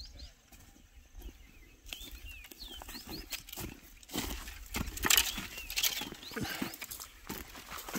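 Birds chirping in the background; from about four seconds in, an armful of dry firewood sticks clatters and crackles as it is handled, loudest just after the middle.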